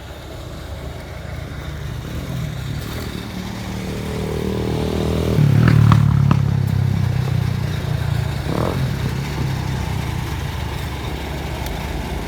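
A vehicle engine running, growing louder to a peak about six seconds in, with a few clanks there, then easing off.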